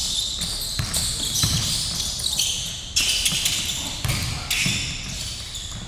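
Basketball being dribbled on a hardwood gym court: irregular bouncing thuds amid the scuffle of a live game.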